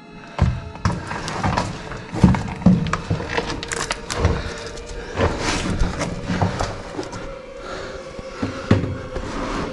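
Irregular knocks, thuds and scrapes of a person squeezing and clambering through a narrow mine entrance over rock, with quiet background music underneath.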